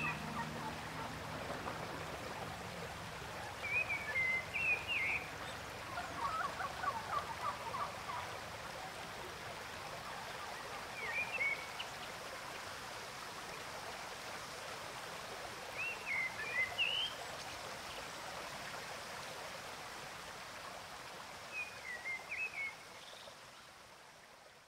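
Ambience of running water with short bird chirps every five or six seconds and a brief rattling call about seven seconds in. The tail of the music dies away in the first couple of seconds, and everything fades out near the end.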